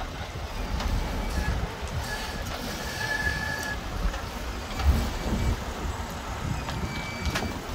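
A small open Moke car driving slowly past close by: a low, uneven rumble.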